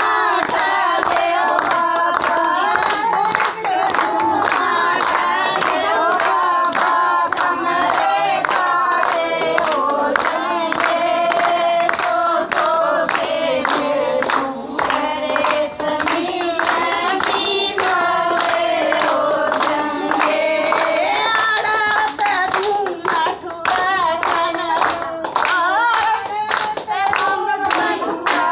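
Women singing a Haryanvi folk song together, with hands clapping in a steady beat throughout.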